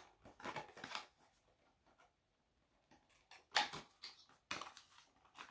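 Perfume box and its packaging being opened and handled by hand: several short, faint rustling scrapes.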